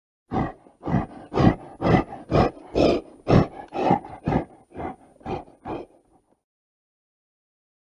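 Gorilla calling in a rapid series of about a dozen loud, evenly spaced vocal pulses, roughly two a second, that stop abruptly about six seconds in.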